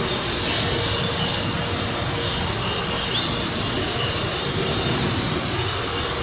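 Lima-built Shay geared steam locomotives working hard together, a steady roar of exhaust and steam.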